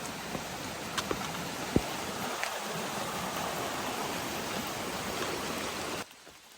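Steady rushing of a stream's running water, with a few light clicks over it; it cuts off abruptly near the end.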